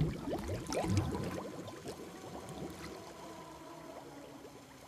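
Air bubbles gurgling up through bath water from a sinking metal egg: a thick flurry of small bubbles in the first second or so, thinning out and fading away.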